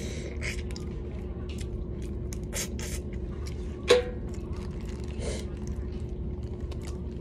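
Crawfish being eaten by hand: short crackles of shells being peeled and brief sucking noises, with one sharp click about four seconds in. A steady low room hum runs underneath.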